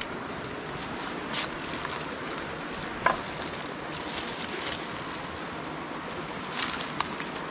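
Steady rushing of a river, with a few scattered sharp knocks and clicks. The loudest knock, about three seconds in, rings briefly.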